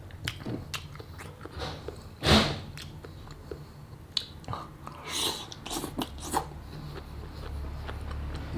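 Eating chicken feet in Thai sauce: wet biting and chewing with sharp clicks, one loud bite about two seconds in and a cluster of bites between five and six and a half seconds.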